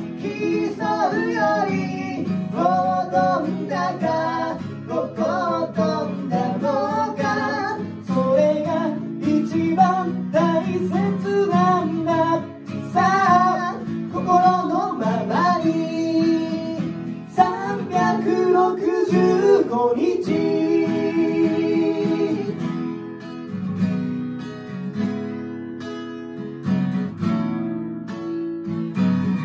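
Two men singing together to two strummed acoustic guitars. About two-thirds of the way through the singing stops and the guitars carry on alone, strumming an instrumental interlude.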